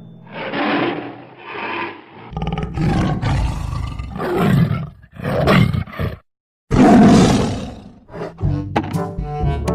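Tiger roaring and growling, a run of rough roars with a brief silent break before the loudest one about seven seconds in.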